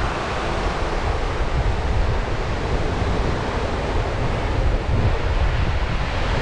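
Sea surf on the beach, with strong wind blowing across the microphone.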